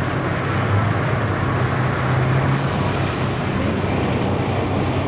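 City bus engine running with a steady low hum and road noise, heard from inside the passenger cabin.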